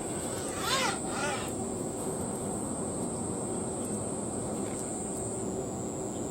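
An animal calls twice in quick succession about a second in, two short rising-and-falling cries. Under it there is a steady high-pitched whine and a low, even outdoor background.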